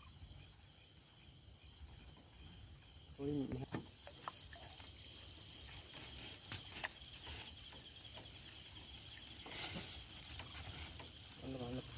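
Night insects, crickets by the sound of them, chirping in a fast, steady high-pitched trill. A short voice-like call cuts in about three seconds in and again near the end, with a few light clicks and a brief rustle about ten seconds in.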